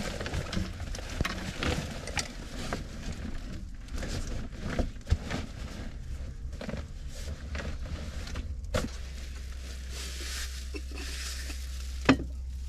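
Synthetic fabric rustling and crinkling as a black nylon bag is handled on a tarp-covered bunk, with a few small knocks. Near the end, a sharp knock as a clay pot is set down on a wooden shelf.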